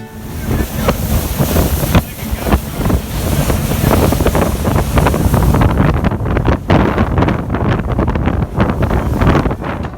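Heavy, gusty wind noise buffeting the microphone over the rushing water of a boat under way.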